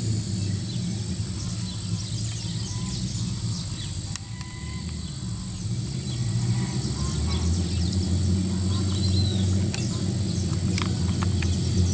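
A V8 engine, the Ford Maverick's, running out of sight with a steady low rumble that grows louder from about seven seconds in as the car approaches, while small birds chirp now and then.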